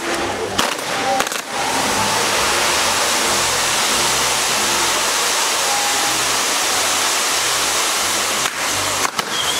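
Fireworks castle burning: its spark fountains and spinning wheels give a loud, steady rushing hiss, with a few sharp bangs near the start and again near the end.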